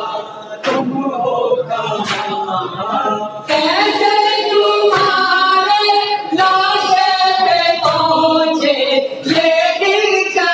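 Two men reciting an Urdu noha (lament) unaccompanied into a microphone, joined by a chorus of mourners' voices, with the singing growing louder about a third of the way in. Sharp rhythmic thumps about every second and a half keep the beat, the mourners' matam (chest-beating).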